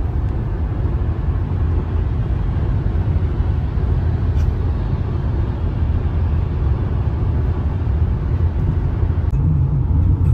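Steady low road and engine noise inside a car's cabin while cruising at highway speed.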